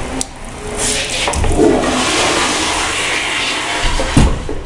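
A toilet flushing in a restroom stall: a loud, steady rush of water that starts about a second in and stops just before the end, with a low thump near the end.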